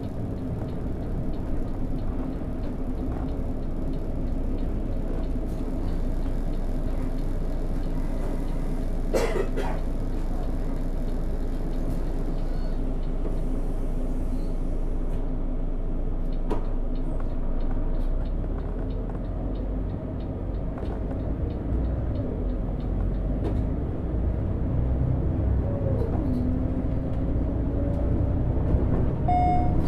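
Volvo B12BLE bus on the move, its DH12E 12-litre six-cylinder diesel running steadily under the road noise, with the steady buzz of a faulty electronic display on the driver's side. A single sharp click comes about nine seconds in, and near the end the engine note dips and then climbs as it gets louder.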